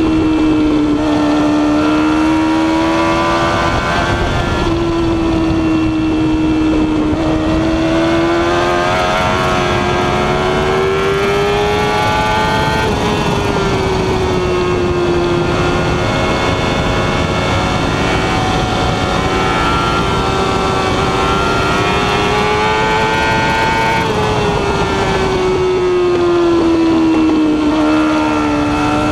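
Yamaha R6 sport bike's inline-four engine at high revs on track, heard from onboard. Its pitch climbs slowly over several seconds and falls back, several times, as the bike drives through a run of corners.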